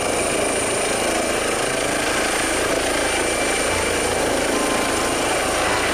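Helicopter sound effect: a steady whirring of rotor and engine noise with a thin high whine over it.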